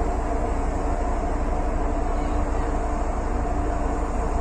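Steady low drone of a large ship's machinery heard from its deck, a deep rumble with several even humming tones that do not change.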